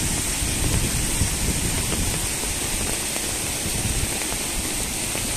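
Steady rain falling, an even hiss with no distinct splashes or knocks, and a faint steady high note above it.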